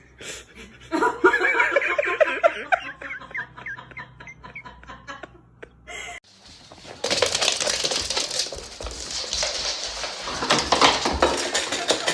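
A person laughing in short bursts, then a few seconds of dense rustling, clattering noise with many small clicks.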